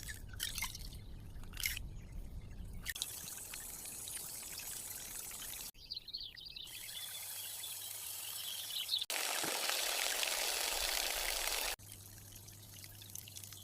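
Water pouring and trickling in several short segments that change abruptly, with the loudest stretch a little past the middle.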